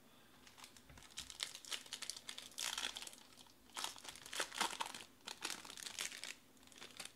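Silver foil wrapper of a Topps Museum Collection card pack being torn open and crinkled by hand, in uneven bursts of crackling with short pauses between them.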